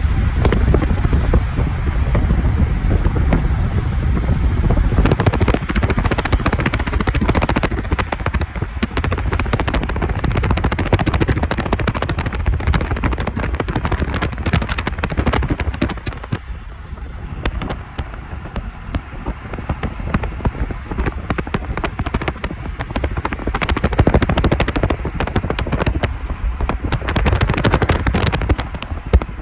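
Storm wind buffeting the microphone with a low rumble, overlaid by dense, rapid crackling and ticking like ice or snow pellets striking. It eases for a few seconds past the middle, then builds again.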